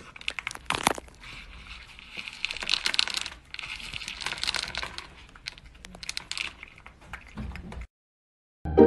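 A cat eating dry kibble from a bowl: irregular crunching and clicking as it chews and paws the pellets about.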